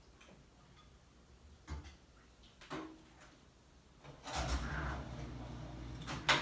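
Handling noises at a table: two light knocks, then a couple of seconds of rustling and shuffling, ending in a sharp click.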